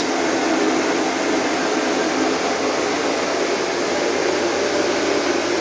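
Cooling fan of a Laser Physics Reliant 300WC air-cooled argon-krypton ion laser running while the laser is powered up: a steady rush of air with a low hum underneath.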